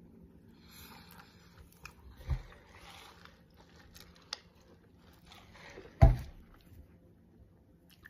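Drinking from a paper fast-food cup, with soft sipping and rustling from the cup and hands, and two dull thumps, the louder one about six seconds in.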